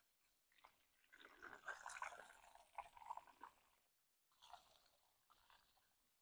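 Hot oil sizzling and crackling around breaded chicken Kievs deep-frying in a Dutch oven; faint and uneven, coming and going over a few seconds.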